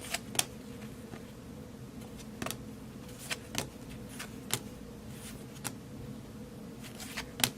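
Baseball cards being handled and flipped through, a scattering of soft, irregular clicks as cards are slid off the stack. A faint steady hum runs underneath.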